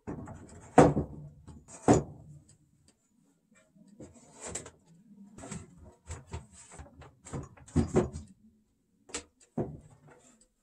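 Solid wood boards knocking and thudding against each other and the workbench as shelf tenons are pushed into the mortises of a side panel; irregular knocks, the loudest about a second in and another about two seconds in.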